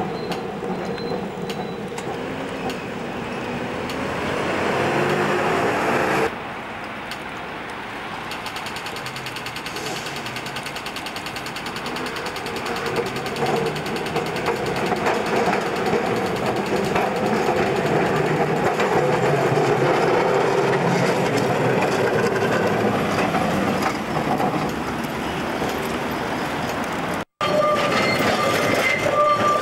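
W class tram running along street track among road traffic, its wheel and motor noise growing louder as it comes closer. Near the end a high steady wheel squeal starts.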